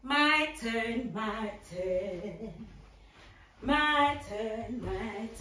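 A woman singing unaccompanied, with a loud held note at the start and another just under four seconds in, and a quieter stretch between.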